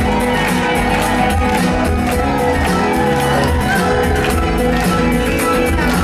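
Fast, upbeat song played loud through a concert hall's sound system, with a steady drum beat.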